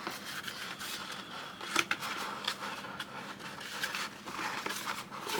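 Cardboard box packaging being handled: light rustling and scraping, with a few sharp clicks, the clearest about two seconds in.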